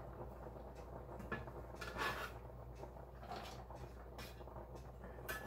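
A metal bench scraper tapping and scraping as diced onion is knocked off it into a funnel on a glass jar: a few soft clicks spread over several seconds, the clearest about two seconds in, over a faint low hum.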